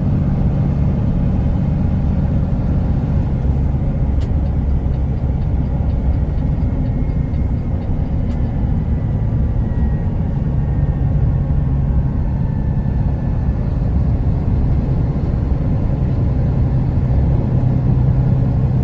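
Steady in-cab drone of a T360 concrete mixer truck's diesel engine and tyres while cruising on the highway; the low engine hum stays at a constant pitch throughout.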